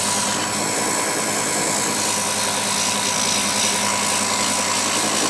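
Small wood lathe motor running steadily, a constant hum, while sandpaper is held against the spinning wooden float blank, adding an even sanding hiss.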